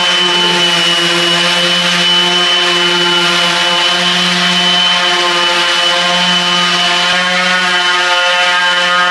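Cordless random orbital sander running steadily on a wooden tabletop with a hook-and-loop 220-grit disc, a constant buzzing hum with a thin high whine on top. The sander is stripping the table's old finish.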